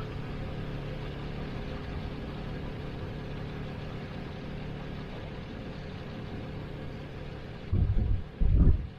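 Jeep Cherokee XJ engine idling steadily while the vehicle sits stuck during a winch recovery. Two short bursts of low rumble near the end.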